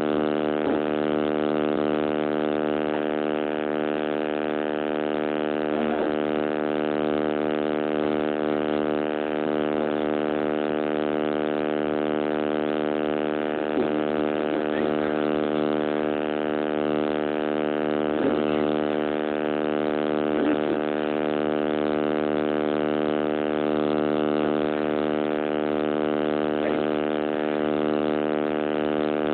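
Loud, steady electrical buzz from a damaged phone microphone: many even tones held without change, masking everything else in the recording.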